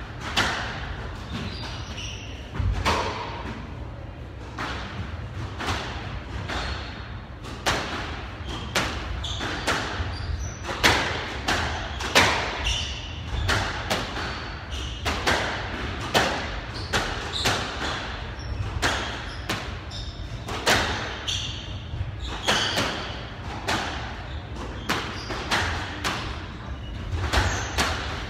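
A squash rally: the rubber ball cracking off the rackets and smacking the walls in quick, irregular succession, roughly one hit every half second to a second, with players' shoes squeaking on the wooden court floor between the shots.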